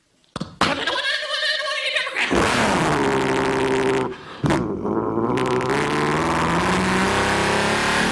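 A man's voice imitating a car: a hissing screech, then a long, low engine drone held with a brief break about four seconds in, mimicking a vehicle driven with a slipping, burning clutch.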